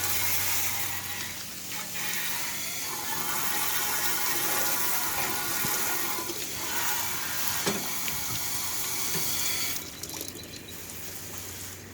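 Garden hose spraying water down into the inside of an air conditioner's condenser coils to back-flush the dirt out, a steady spray that cuts off about ten seconds in.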